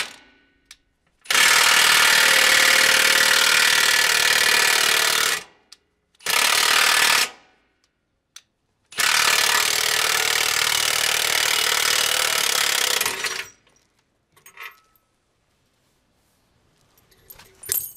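Milwaukee cordless impact wrench hammering on the bolts of a tractor wheel rim to remove them, in three bursts: about four seconds, a short one of about a second, then about four and a half seconds. A few faint clicks follow near the end.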